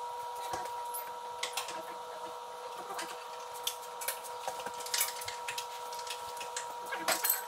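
Scattered metallic clicks and clinks of hand tools and exhaust parts as a snowmobile's exhaust pipe is swapped, over a steady hum.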